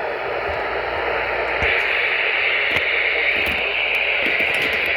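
Weather radio receiver hissing with static and scattered crackles. The hiss grows louder and brighter about a second and a half in.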